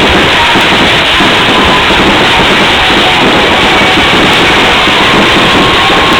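Fireworks going off in a dense, continuous barrage, loud enough to overload the recording into one steady wash of noise with no separate bangs standing out.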